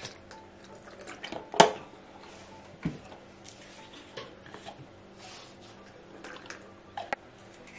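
Milk poured from a carton into a plastic mixing bowl, then ingredients handled on the table: a sharp knock with a brief ring about one and a half seconds in, a duller knock near three seconds, and small clicks as a bottle cap is opened and dark sauce is poured into the bowl.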